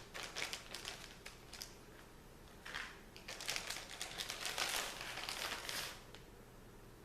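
Plastic packaging crinkling and rustling in irregular bursts while cheese is shaken out over a pizza, in two stretches: for the first second or so, then again from about three seconds in for about three seconds.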